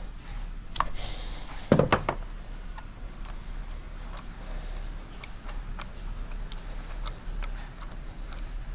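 Ratchet wrench with a 16 mm spark plug socket clicking and clinking as a spark plug is loosened: two louder clanks near two seconds in, then a string of small ticks, roughly two a second.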